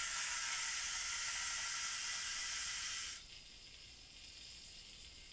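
Hasbro Blazing Team Vortex Spin plastic yo-yo spinning at the end of its string with a steady, super noisy whir, which the owner takes for its one-way outer cap spinning. About three seconds in the noise cuts off suddenly and it goes quiet.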